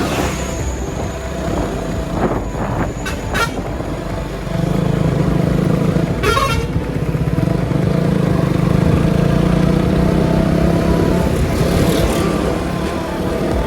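Road traffic with a vehicle horn tooting. A heavy vehicle's steady low drone grows much louder about four and a half seconds in and holds for about seven seconds.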